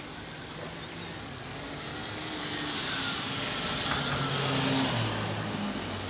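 A car driving past: engine and tyre noise swell to a peak about four to five seconds in, then fade.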